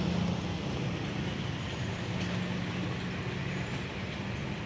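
Diesel locomotive of an arriving passenger train running at a distance: a low steady engine hum over a steady outdoor noise.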